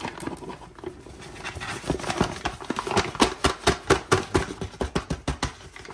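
Flour being added to a stainless steel mixing bowl from a paper bag with a metal scoop: the bag rustles and the scoop makes a quick run of scrapes and taps, several a second, densest from about two seconds in until just before the end.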